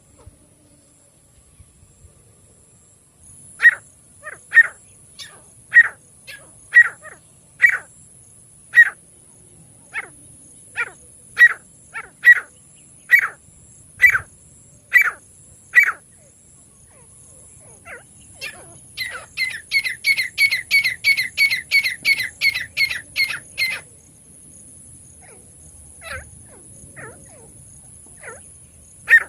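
A francolin (teetar) calling: loud, sharp, high notes about once a second for a stretch, then a rapid run of about four notes a second for some five seconds, then a few scattered notes near the end.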